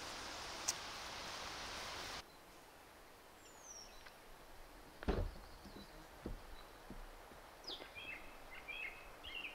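Outdoor ambience: a steady hiss for the first two seconds cuts off abruptly, leaving a quieter background with scattered bird chirps. The loudest thing is a single thump about five seconds in, with a few light clicks after it.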